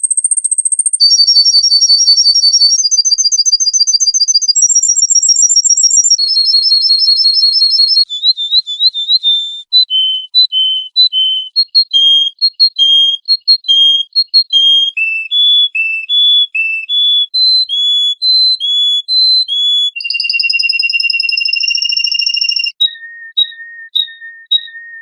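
A songbird singing a long, varied song of pure whistled notes. It opens with fast buzzy trills, then moves to a run of separate short whistles at about two a second, a longer held whistle near the end, and a few low short notes.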